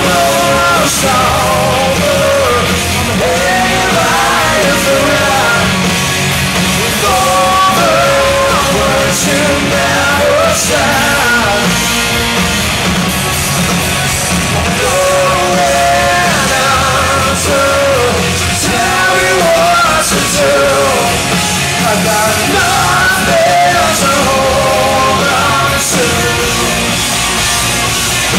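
Live rock band playing loudly through a concert PA, heard from among the audience: electric guitars, bass and drums, with a wavering lead line over them.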